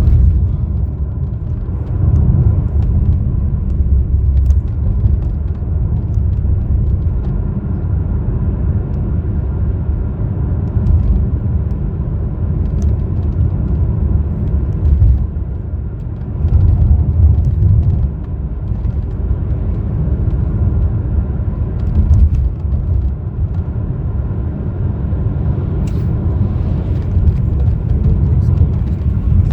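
Road and engine noise inside a moving car: a steady low rumble that swells and eases every few seconds.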